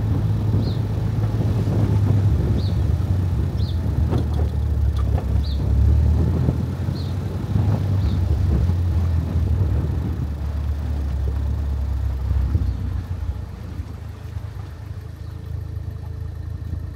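Car rolling slowly over a gravel lot, heard from inside the cabin: a steady low engine and road rumble that eases off after about twelve seconds as the car slows.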